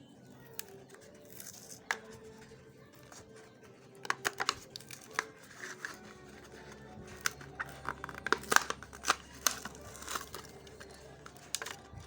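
Cardboard-and-plastic blister packaging of a Hot Wheels die-cast car being torn open: irregular tearing, crackling and crinkling, sparse at first and busier and louder from about four seconds in.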